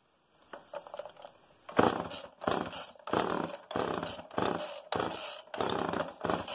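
Homelite XL two-stroke chainsaw being pull-started over and over: about nine quick pulls in a row, each a short burst of the engine cranking and sputtering without catching to run. A hard-starting old saw.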